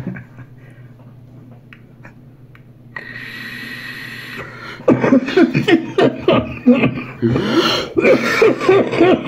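A steady hiss with a thin whistle as vapour is drawn through a vape, then from about five seconds in a man's long fit of loud, rapid, repeated coughing after the deep draw.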